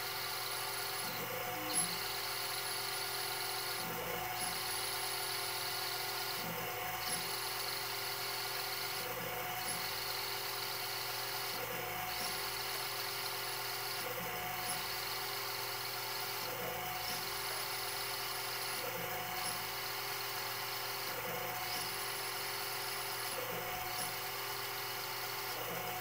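Mini CNC lathe turning a small metal bar: a steady motor whine under a hiss of cutting that drops out briefly about every two and a half seconds, in a regular repeating cycle of passes, with an occasional small click.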